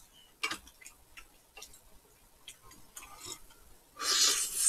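Eating noises: small irregular clicks of chopsticks and mouths, then about four seconds in a loud, hissy slurp from a bowl lasting over half a second.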